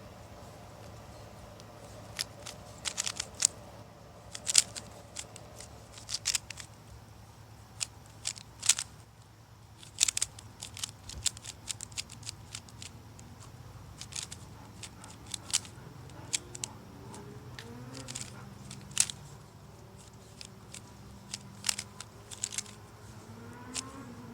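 Plastic Moyu speed cube being turned fast during a Rubik's cube solve: irregular sharp clicks and clacks of the layers, some in quick clusters.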